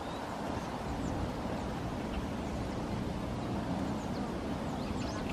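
Outdoor ambience: a steady low rumble with faint, short, high bird chirps scattered through it, coming more often near the end.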